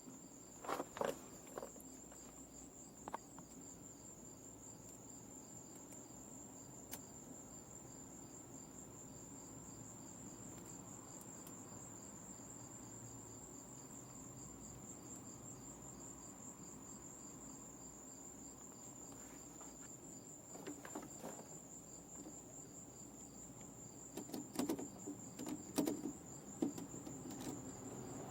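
Insects trilling in a steady, high-pitched, finely pulsing chirr. Short clicks and knocks of handling about a second in, about three seconds in, and several more near the end.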